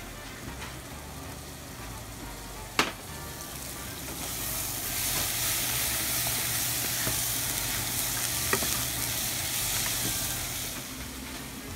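Ground beef and vegetable filling sizzling in a saucepan while it is stirred with a wooden spoon. There is a sharp knock about three seconds in. The sizzling is loudest from about four seconds in until near the end.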